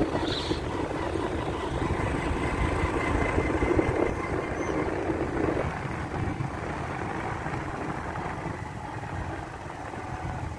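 Motorcycle engine running as the bike is ridden, over a steady low rumble. The engine's mid-pitched note falls away a little under six seconds in.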